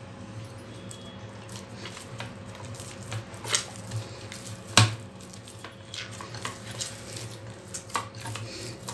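Hands kneading stiff maida dough with oil worked into it in a glass bowl: soft squishing with scattered clicks against the glass, and a sharper knock about five seconds in, over a steady low hum.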